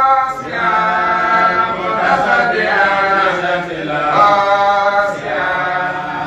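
A man chanting a religious recitation in long, held melodic phrases, each about a second long with short breaks between them.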